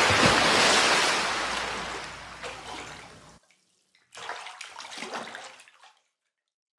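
Water splash sound effect for an animated logo: loudest at the start and fading away over about three seconds, then a second, shorter watery swell about a second later that dies away before the end.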